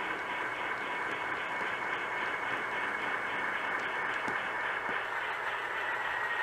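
Model diesel switcher locomotive's sound system playing a diesel engine running steadily as it pulls a short cut of freight cars, with a fast, even pulse in the engine sound.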